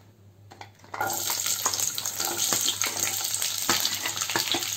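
Square-cut onion pieces tipped into hot oil in a kadhai: a sizzle starts suddenly about a second in and goes on with crackling as they begin to fry.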